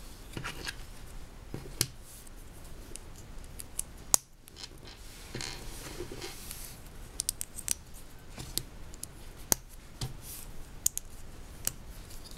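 Small plastic Lego pieces clicking and snapping together by hand as a little stand is built, with scattered sharp clicks and light handling noise; the loudest click comes about four seconds in.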